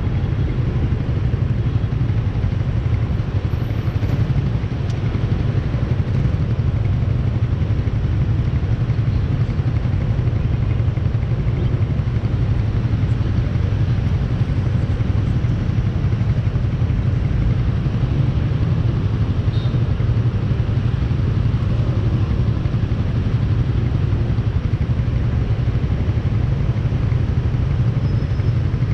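Motor scooter engines idling at a standstill: the scooter's own engine and the motorcycles queued around it, a steady low engine sound with no revving.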